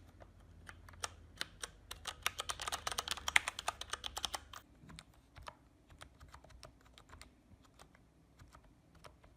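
Typing on a computer keyboard: a run of key clicks, quick and dense from about two to four and a half seconds in, then slower, scattered keystrokes.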